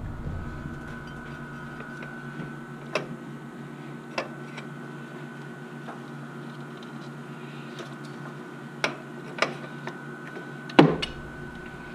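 Scattered sharp clicks and clinks of hand tools on engine parts, about six in all, the loudest shortly before the end, over a steady hum.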